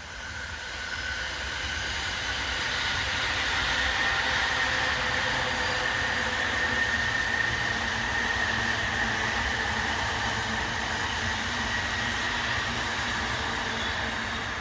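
A freight train rolling past, growing louder over the first few seconds and fading near the end, with a faint steady high tone running through it.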